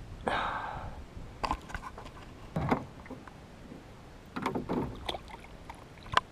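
Water splashing and sloshing at the side of a boat as a juvenile tarpon is handled in a landing net and lowered back into the water: a long splash just after the start, then several shorter splashes, and sharp clicks and knocks of handling, the sharpest near the end.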